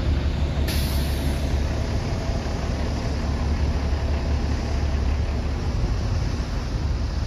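A 1992 International truck's Cummins diesel engine idling steadily, with a brief hiss about a second in.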